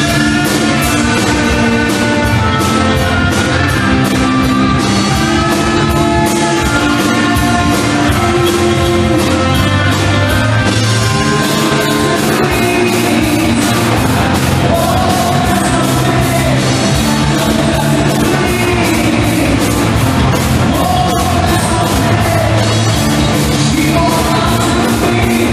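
Live rock band playing, with electric guitars, bass and a drum kit under a singer's voice.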